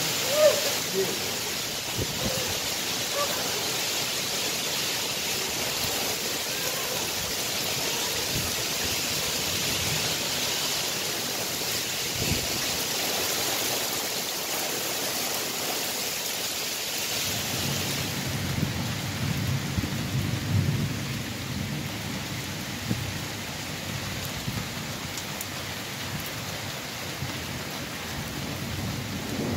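Heavy rain pouring onto a street and hard surfaces, a steady dense hiss. A sharp tap sounds about half a second in. From a little past halfway, a low rolling rumble of thunder comes in underneath the rain and carries on.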